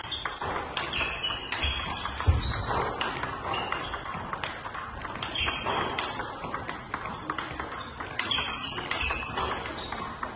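Table tennis multiball drill: balls fed from a bucket click in a quick, uneven stream off the bats and the table as one player feeds and the other returns them.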